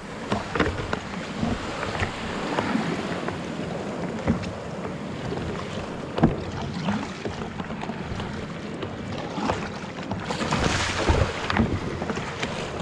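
Sea water washing and splashing around a sit-on-top kayak being paddled out through shore break, with paddle strokes splashing and wind buffeting the microphone. A louder rush of surf comes about ten seconds in.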